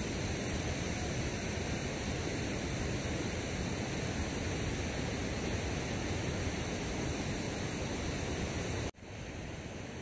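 Steady rushing noise of water pouring from a dam spillway. About nine seconds in it cuts out abruptly and comes back a little quieter and duller.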